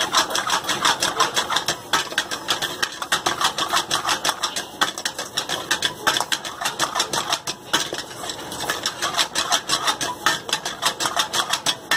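Steel ladle scraping and knocking rapidly against a wok while rice is stir-fried, several strokes a second with a few brief pauses.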